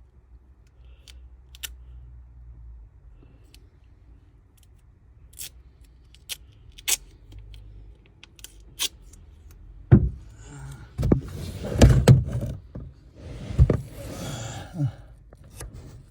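Hand work on a tailgate gas strut's end fitting being wrapped with tape: scattered small clicks, then from about two-thirds of the way in a run of louder knocks and short stretches of rustling noise.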